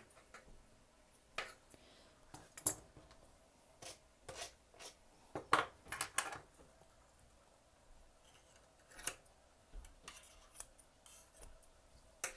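Grooming shears snipping through a Maltese's long coat: short, sharp snips at irregular intervals with pauses between, as the hem of the coat is trimmed.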